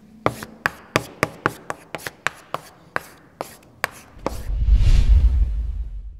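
Chalk striking and scraping on a blackboard as letters are written: a run of sharp taps, three or four a second. About four seconds in, a deep rumble swells up and then fades.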